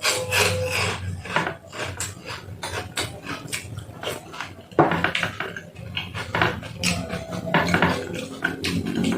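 Spoon clinking and scraping against a soup bowl in many short irregular knocks, along with the mouth sounds of someone eating soup and vegetables.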